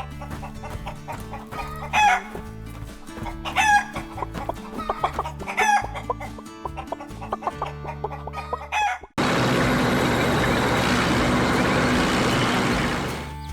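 Chicken clucks and crowing calls, four short calls over a steady low music bed. About nine seconds in, this cuts suddenly to a louder steady rushing noise that fades near the end.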